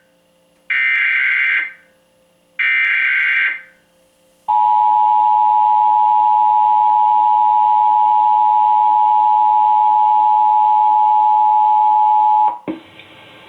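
Emergency Alert System SAME header: two short bursts of screeching digital data tones, each about a second long. They are followed by the EAS two-tone attention signal, a steady dual tone held about eight seconds and cut off abruptly. This marks the start of a Required Monthly Test.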